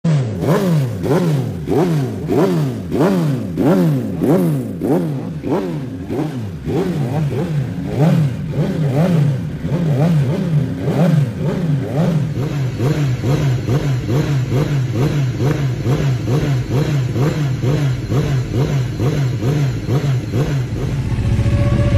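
Stationary World Superbike racing motorcycle engines revved on the throttle, blipped about twice a second so the pitch climbs and drops again and again. The blips are deep for the first twelve seconds or so, then shallower and quicker after a change to another bike.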